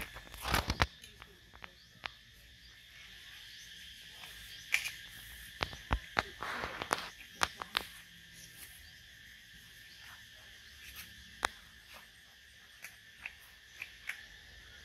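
Scattered clicks, taps and short rustles of a ripe jackfruit being handled and picked apart, with a steady high-pitched drone in the background.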